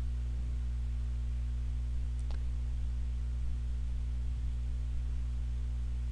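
Steady low electrical hum from the recording chain, with a single faint click about two seconds in.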